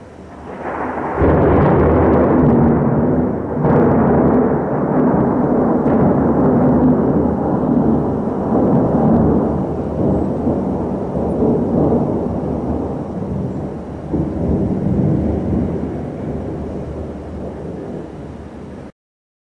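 Rolling thunder from a nearby lightning strike: a sharp crack about a second in, then a long low rumble that swells again several times and slowly fades. It cuts off suddenly near the end.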